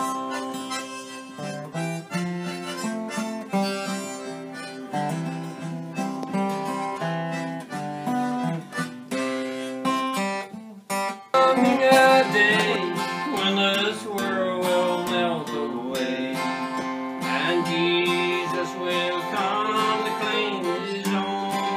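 Mandolin playing a folk tune with held, sustained notes for about the first eleven seconds. After a brief break, an acoustic guitar is strummed and picked, with a melody line sliding in pitch over it.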